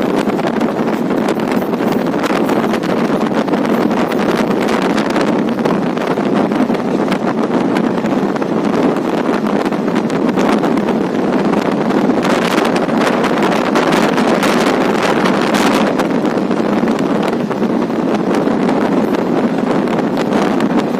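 Wind rushing over the microphone together with the steady running noise of a train at speed, with many small clicks throughout.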